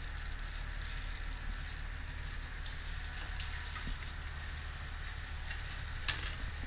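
Steady low engine hum aboard a fishing boat, with a single sharp knock about six seconds in.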